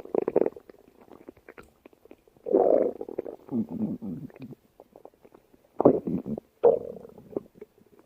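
Stomach growling: irregular bouts of gurgling rumbles, a burst right at the start, a longer run of about two seconds in the middle, and two short loud bursts near the end, with quieter gurgles in between.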